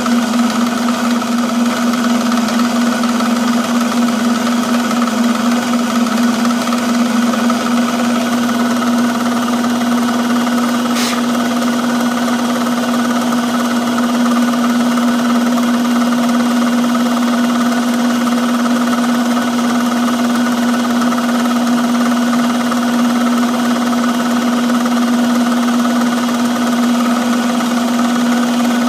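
Milling machine running a half-inch cutter through a pass along the edge of a metal part: a steady hum with a higher whine over it, unchanging throughout, with one short tick about 11 seconds in.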